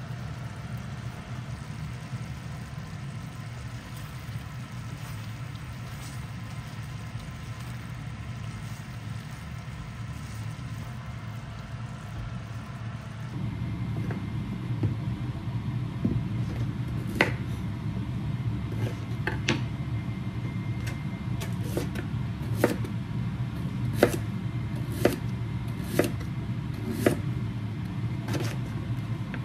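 A kitchen knife slicing through a raw sweet potato onto a wooden cutting board: about a dozen sharp knocks, roughly one a second, in the second half. A steady low hum runs underneath and grows louder about halfway through.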